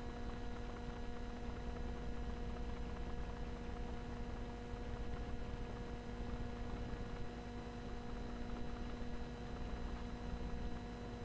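Steady electrical mains hum and buzz: several fixed tones held without change over a low rumble.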